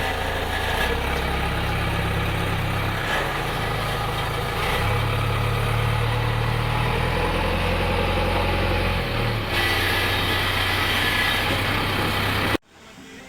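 Diesel engine of heavy machinery running, its pitch stepping up and down several times as the load changes. The sound drops away abruptly near the end.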